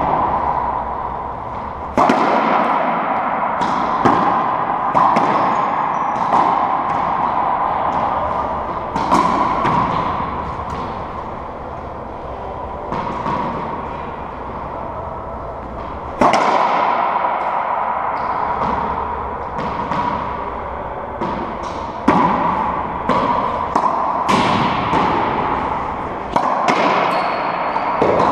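Racquetball rally: the hollow rubber ball is struck by racquets and smacks off the walls and floor of the enclosed court, a string of sharp hits at uneven gaps, each ringing briefly in the court's echo.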